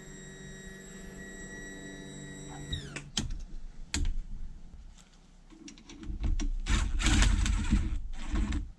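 A small power tool's motor runs steadily for about three seconds and then winds down. It is followed by scattered clicks and a stretch of metallic clattering and handling of outboard parts.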